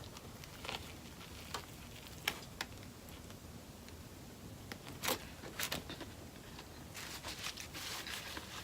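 Quiet eating sounds: soft chewing with faint, scattered mouth clicks and smacks, and a soft rustle near the end.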